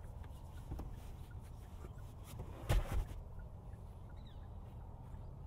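Kia Niro second-row seatback released and folded forward: a small click of the release latch under a second in, then the seatback landing flat with a double thump about three seconds in.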